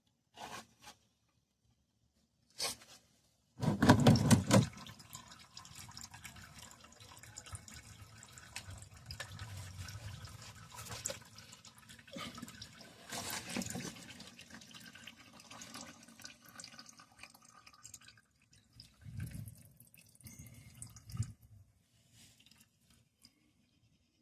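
Engine oil pouring and dripping from the drain hole into a drain pan, a steady run of liquid that thins out over about fourteen seconds, with a few knocks of tools or the pan before and after.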